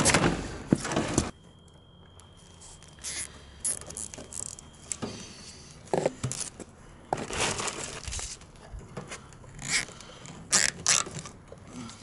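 Plastic zip ties being pulled tight with a ratcheting zip, fastening PEX radiant-heat tubing to rebar, amid scraping and rustling of hands on the tubing, in short scattered bursts.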